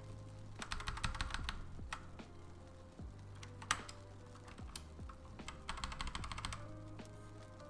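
Typing on a thocky 80% mechanical keyboard with new keycaps: two runs of rapid keystrokes with sparser single presses between them, and one sharper, louder key strike about midway.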